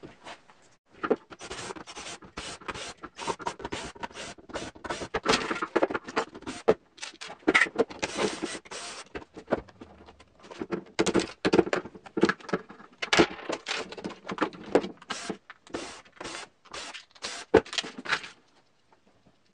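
Plastic fan parts and loose screws being handled and taken apart on a tabletop: a busy run of irregular clattering, knocking and scraping, with a short lull about halfway through and again near the end.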